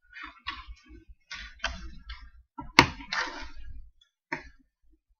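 Plastic Lego pieces being handled and fitted: irregular small clicks and rattles with dull bumps on the table, and one sharp louder click about three seconds in.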